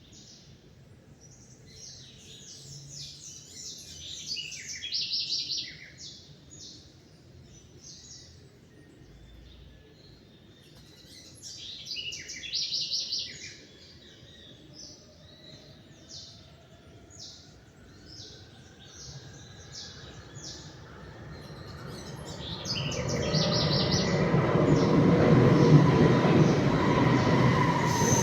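Small songbirds chirping and twittering in quick, repeated short notes. In the last third a loud rushing rumble with a rising whine builds up and swells over them.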